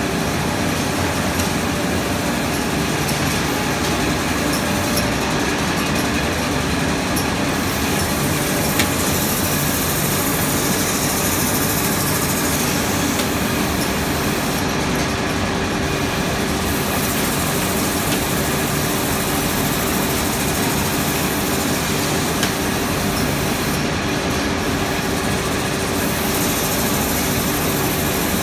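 Industrial production machines on a factory floor running together, a loud, steady mechanical din.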